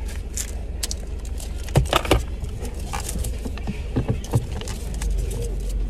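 Steady low rumble of a car cabin with the engine running, over a scatter of short clicks, knocks and rattles from things being handled inside the car, the sharpest pair about two seconds in.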